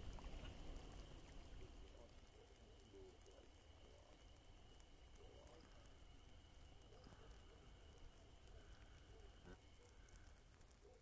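Faint, very high-pitched chirping from small calling animals, in repeated trains about a second long with short gaps between them, over a steady thin high tone.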